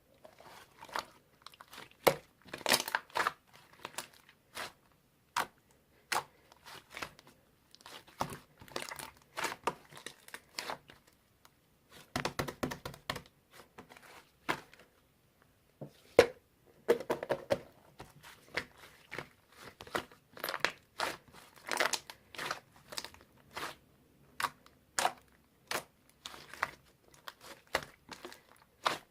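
Two-layer slime being squeezed, stretched and poked by hand, giving irregular sharp clicks and short crackly bursts.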